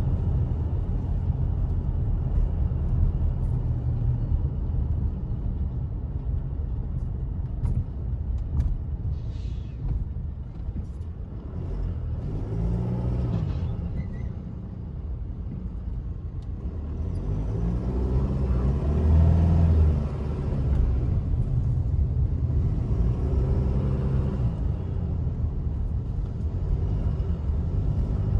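Car driving, heard from inside the cabin: a steady low rumble of engine and road noise. The engine note swells and falls a few times, about halfway through and again near the end.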